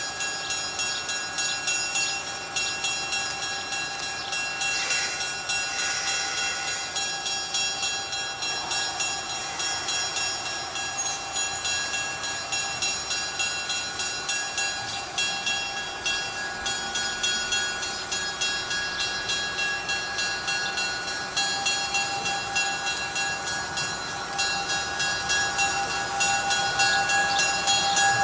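A train moving along the track, with an even, repeating pulse and steady high ringing tones throughout.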